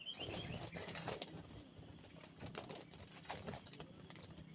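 Faint rustling and irregular scraping clicks close by, with birds calling in the background.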